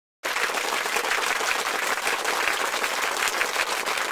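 Applause from many people, starting suddenly after a split second of silence and holding steady.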